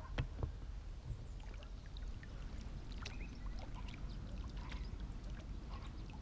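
Small water sounds at a pond's edge: scattered light splashes and drips over a low steady rumble.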